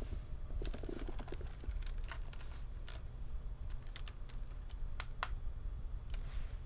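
Irregular light clicks and taps, with two sharper ones about five seconds in, over a steady low hum.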